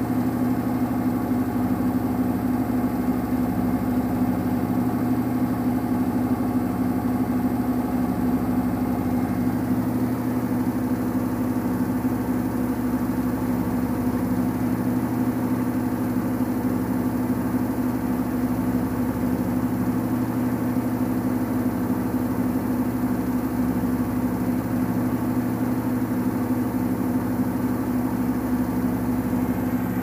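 Samsung WW80CGC04DAELE front-loading washing machine in its 1000 rpm spin with an unbalanced load: the drum and motor running at a steady speed and a constant pitch.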